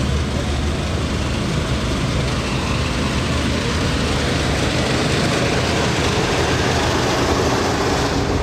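A steady low engine hum, like an engine idling, under a constant wash of outdoor noise.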